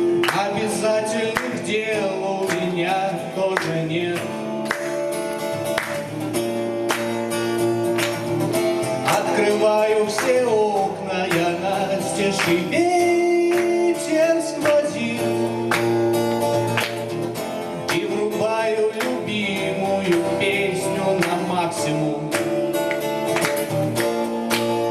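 A man singing a song to strummed guitar accompaniment.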